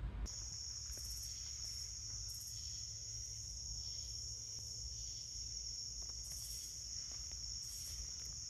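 Insect chorus trilling steadily at one high pitch over a faint low rumble.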